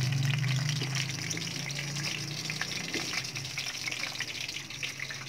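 Breaded pork chop frying in hot oil in a pan: a steady sizzle with fine crackling, over a low hum that eases after about two seconds.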